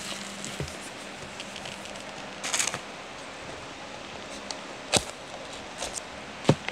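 Hands handling a small cardboard phone box: a short rustling scrape about two and a half seconds in, then two sharp taps, one about five seconds in and a louder one near the end.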